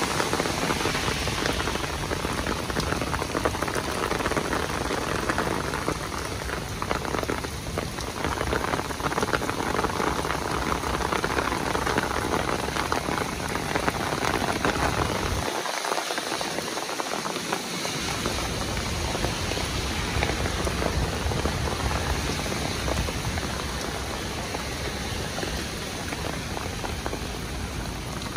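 Heavy downpour: rain pouring steadily in a dense hiss. The low rumble under it drops away for a couple of seconds just past halfway.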